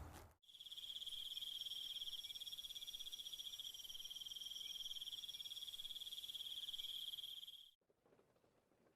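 Crickets chirping in a steady, high, rapidly pulsing trill that starts about half a second in and cuts off abruptly about a second before the end.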